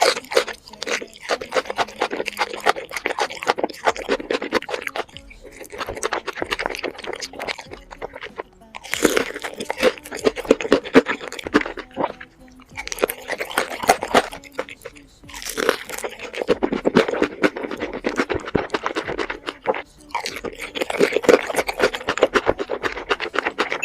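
Close-miked eating of spicy noodles: chewing and mouth sounds in bouts of dense clicking a few seconds long, with short pauses between them.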